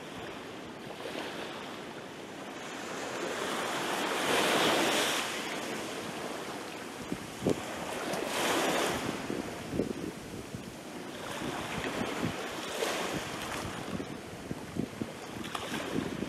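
Small sea waves breaking and washing up a sand-and-pebble beach, the wash swelling and fading about every four seconds.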